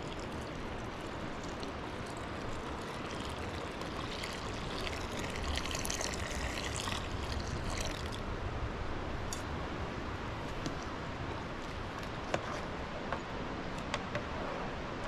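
Milk poured in a stream from an aluminium pot into a large pot over a wood fire, trickling and splashing, loudest in the middle of the pour. A few sharp clicks near the end.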